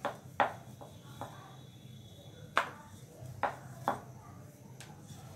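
Wooden rolling pin rolling out dough on a stone countertop, knocking sharply against the counter about seven times at uneven intervals. A low steady hum runs underneath.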